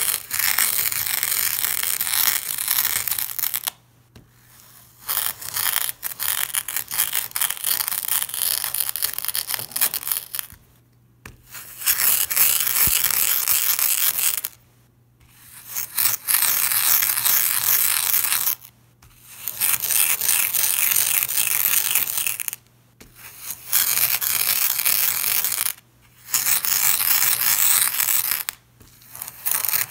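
Pink moldable sand crunching as a clear glass is pressed down through it onto a mirror: a dense, gritty crunching and grinding of sand against glass. It comes in about eight long passes of a few seconds each, with short pauses between.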